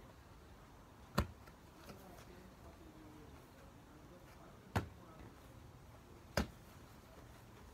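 Rugby ball slapping against hands as it is passed and caught: three sharp smacks a few seconds apart.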